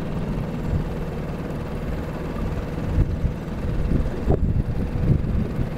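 A canoe's motor running steadily, pushing the boat along, with wind buffeting the microphone.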